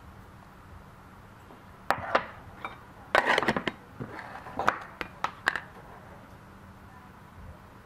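Clicks and clatters of kitchen containers being handled: tin and plastic lids taken off and set down on the countertop. There is a busier run of knocks about three seconds in, then a few single clicks.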